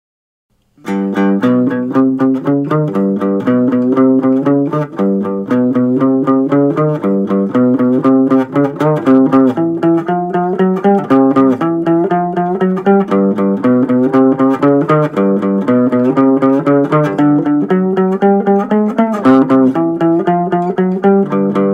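Fretless three-string cigar box guitar played with a slide, picking a steady, repeating 12-bar blues riff with gliding notes; it starts about a second in.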